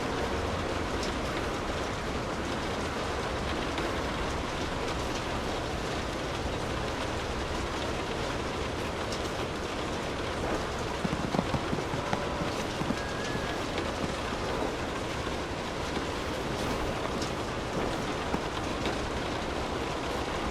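Steady rainfall, an even hiss of drops on surfaces, with a few sharper, louder drop hits about eleven to twelve seconds in.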